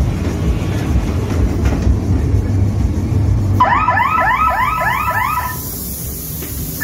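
Ghost train ride car rumbling along its track. From about halfway through, a scare sound effect plays: a rapid electronic warble of rising chirps, about four a second, lasting about two seconds and starting again near the end.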